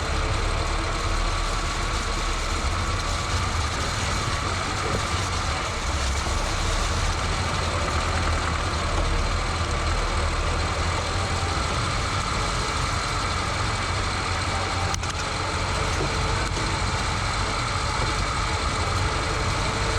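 A vehicle's engine running steadily: a constant low hum under an even rushing noise, as heard while travelling.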